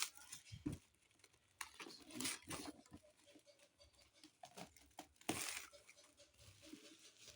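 Blender packaging being handled and opened: faint, irregular rustling, crinkling and scraping of the box and its wrapping, with a louder rustle about five seconds in.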